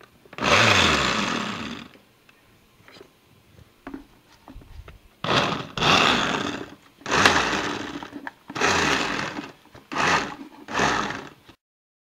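Electric kitchen blender pulsing on chunks of apple, strawberry and kale. One burst comes about half a second in and winds down, with a few small knocks after it. From about five seconds in there are six short bursts in a row, and the sound cuts off abruptly near the end.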